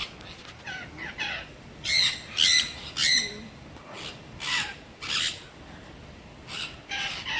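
Parrots squawking: a string of short, harsh calls, roughly one every half second to second, the loudest about two to three seconds in.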